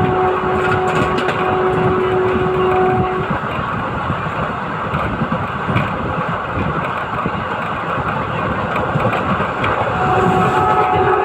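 WDM3A ALCO diesel locomotive engine chugging under load. A steady high tone sounds over it for the first three seconds and comes back louder near the end.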